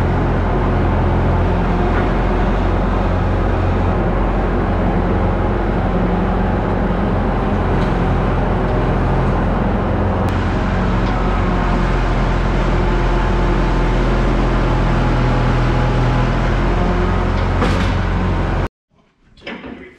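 Bobcat skid-steer loader's engine running steadily while the loader drives and turns, heard from the operator's seat. The sound cuts off suddenly near the end.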